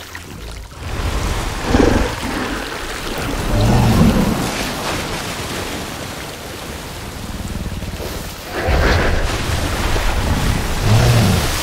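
Film sound design of a giant ape wading through a lake: heavy sloshing and splashing water over deep rumbling, swelling several times.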